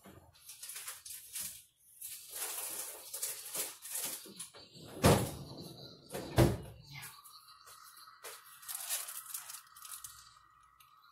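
Things being moved around in a refrigerator freezer drawer, then two heavy thumps, about five and six and a half seconds in, as the refrigerator is shut. A faint steady tone follows.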